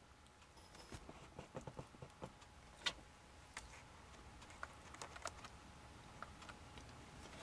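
Faint, irregular small clicks and taps of close handling, with a slightly louder click about three seconds in, over near silence.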